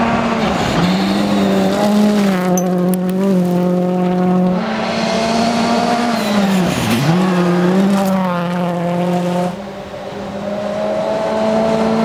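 Ford Fiesta rally car's engine held at high revs, with sharp brief dips in pitch about half a second in and about seven seconds in, and a dip in loudness near ten seconds before it climbs again.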